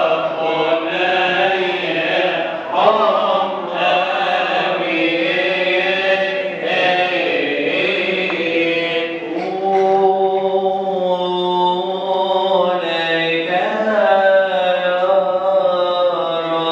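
Coptic Orthodox liturgical chant sung by men's voices in long, drawn-out notes that glide slowly up and down, without a break.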